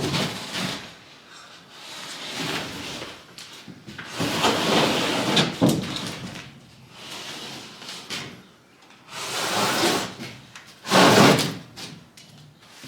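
A sheet of plywood scraping and knocking against wooden attic framing as it is shoved and slid into place, in repeated rough scrapes and bumps.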